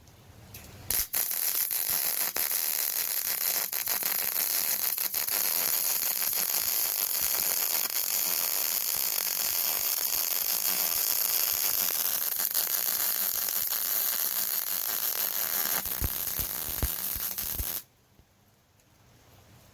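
Yeswelder MIG-Pro250 MIG welder running one long bead on 5/16-inch steel plate with .035 wire: a steady arc crackle and sizzle that starts about a second in and cuts off sharply near the end. A few pops break through where the arc gets into rust, a sign of small porosity holes in the bead.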